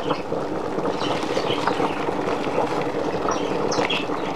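Shrimp and vegetables sizzling in oil in a frying pan, a steady hiss with a scatter of small crackles and pops, as fresh spinach goes into the pan.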